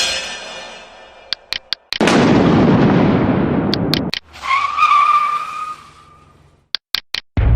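A run of separate short sound effects, each set off by quick clicks. First a sharp hit rings and fades, then a burst of dense noise cuts off sharply, then a high squeal sags slightly in pitch, like tyres skidding.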